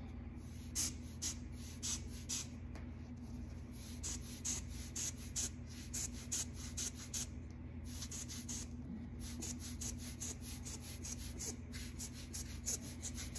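A marker rubbing on paper in quick short scratchy strokes, a few a second, stopping briefly twice, over a faint steady low hum.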